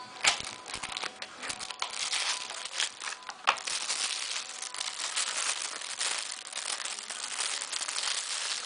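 A sharp knock just after the start as a small cardboard box comes out of a padded mailer, then a thin clear plastic bag crinkling steadily as hands handle and unwrap it.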